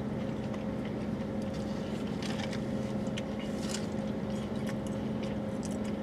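Steady idling hum of a parked vehicle, heard inside the cabin, holding two even tones. Faint chewing clicks come and go over it.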